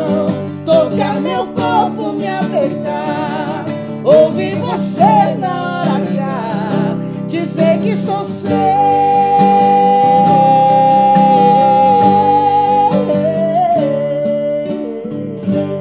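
A sertanejo duo of two male voices singing a romantic ballad in harmony over an acoustic guitar. About halfway through they hold one long note together for several seconds, then move on.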